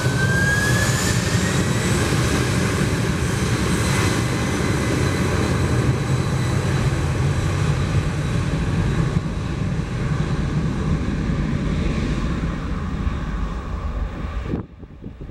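Boeing 767 freighter's twin jet engines running loud at high power as it rolls down the runway, with a high fan whine that rises in pitch over the first couple of seconds. The sound cuts off suddenly near the end.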